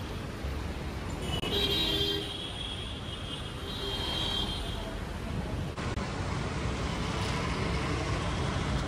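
Road traffic from buses and motorbikes passing on a city street, a steady noise without speech. A high-pitched tone sounds twice, about two and four seconds in.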